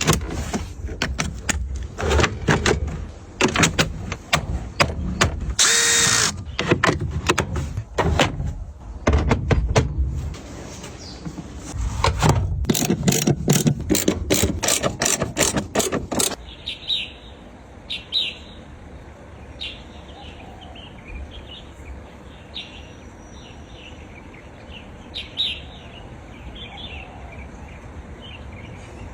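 A dense run of sharp mechanical clicks and knocks, like hand work on a car, for about sixteen seconds. It then stops and gives way to birds chirping over a quiet background.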